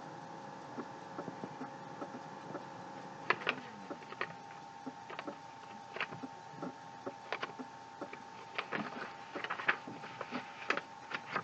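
Steady faint electrical hum, joined from about three seconds in by scattered light clicks and taps at an irregular pace.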